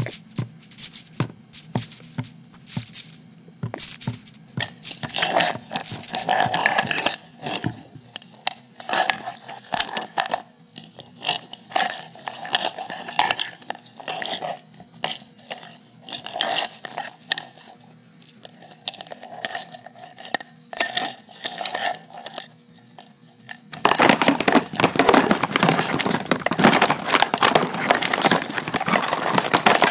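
Close-miked bubbling liquid popping and crackling in irregular clicks over a faint low hum. About 24 s in it cuts to a denser, louder crackling fizz.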